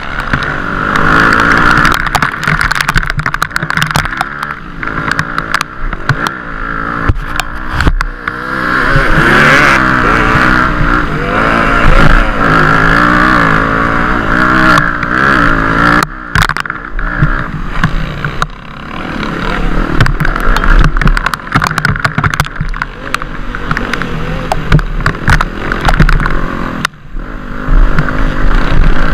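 Dirt bike engine revving up and down as it is ridden over rough off-road trail, with frequent sharp knocks and clatter from the bike over the terrain.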